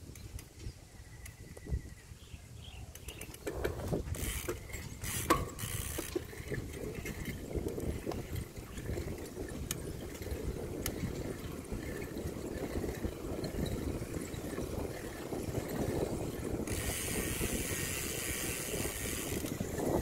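Bicycle being ridden along a paved path: tyre rumble with clicking and rattling from the bike, the clicks like a freewheel ratchet. A steady hiss joins near the end.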